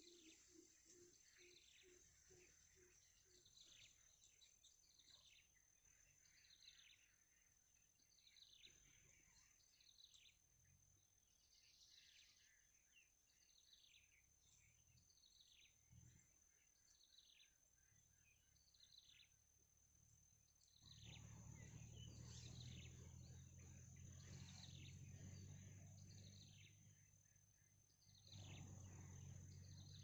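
Faint, repeated high cheeps from a downy nestling, each a short downward sweep, about one or two a second, over a thin steady high whine. About two-thirds through and again near the end, a louder low rumble comes up under them.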